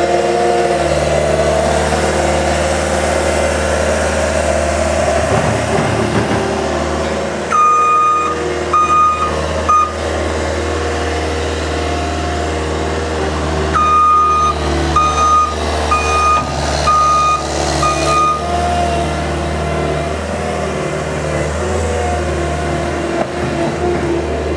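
Heavy construction machine's engine running steadily, with its backup alarm sounding two spells of repeated beeps, one about a third of the way in and a longer one past the middle.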